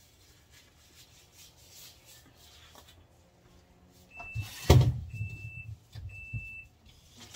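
Refrigerator door-open alarm beeping three times at one high, steady pitch, the first beep short and the next two longer: the doors have been left open too long. A heavy thump comes just before the second beep and is the loudest sound.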